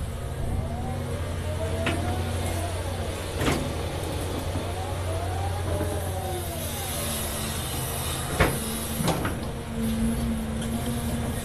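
Caterpillar 336 Next Gen excavator's diesel engine running steadily under load, with a whine that rises and falls as the hydraulics lift and swing the boom. A few sharp knocks break through, the loudest about eight seconds in.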